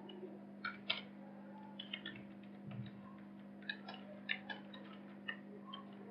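Faint, irregularly spaced small clicks and taps of writing on a surface, over a steady low electrical hum.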